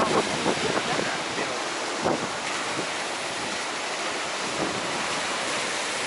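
Baltic Sea surf breaking steadily on a sandy beach, with gusty wind rushing over the microphone.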